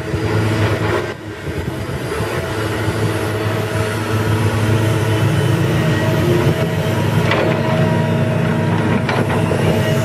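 Komatsu PC150 hydraulic excavator's diesel engine running steadily under load as the machine swings and digs, with two brief clanks about seven and nine seconds in as the bucket works the rocky bank.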